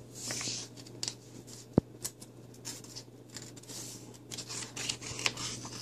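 Paper rustling and sliding as a hand turns the page of a hardcover picture book, with one sharp tap about two seconds in, over a faint low hum.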